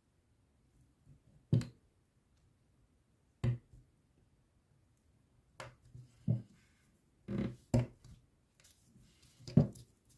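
Tools and small parts handled and set down on a work surface: about seven separate short knocks and clicks spread unevenly, the loudest near the end.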